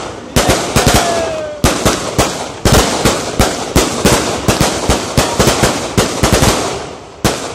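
A long string of firecrackers hanging beneath a hot-air balloon going off in rapid, irregular bangs, several a second, with short gaps between clusters. The bangs thin out and grow fainter near the end.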